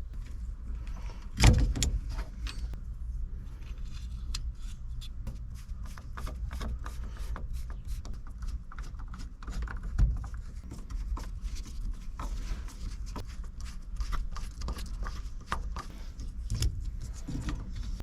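Hand tools and small metal parts clicking and rattling as they are handled, with a louder knock about a second and a half in and another about ten seconds in.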